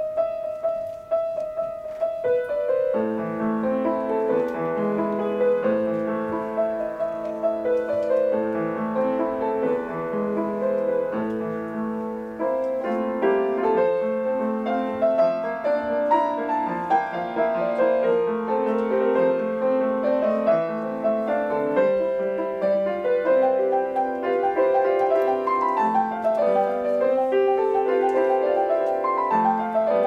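Grand piano played solo: a few held notes at first, then a continuous flow of notes from about three seconds in.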